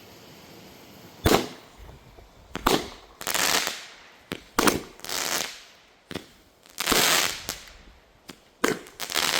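Consumer firework going off shot after shot: sharp reports, several of them followed by about half a second of hissing crackle as the breaks open.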